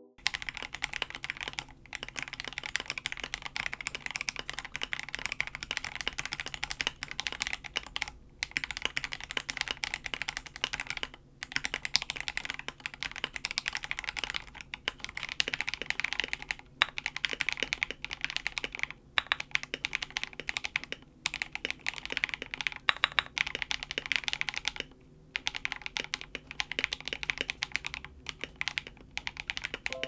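Sound test of a KBD67 Lite mechanical keyboard with lubed Akko Jelly Silver linear switches, a polycarbonate plate, no PE sheet, KBD stabilizers and Akko ASA Dracula double-shot keycaps, typed on continuously. A fast, steady stream of keystroke clacks, with brief pauses every few seconds.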